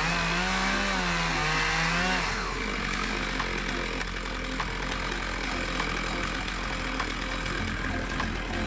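Two-stroke Stihl MS461 chainsaw in a Granberg Alaskan chainsaw mill, cutting into an ash log, its engine pitch wavering under load. After about two seconds the clear engine note drops out, leaving a rougher mechanical noise with faint regular clicks.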